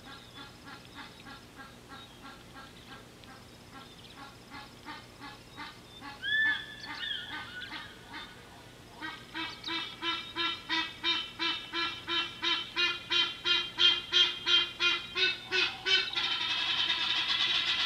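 A long series of honking animal calls, about three a second, faint at first and much louder from about halfway through. Near the end they give way to a steady hiss.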